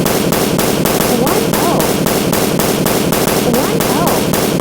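A looped, edited-in sound effect of fast, even pulses, about seven a second, over a dense continuous bed.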